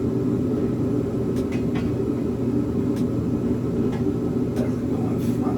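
Steady low hum of a running machine, with a few faint clicks.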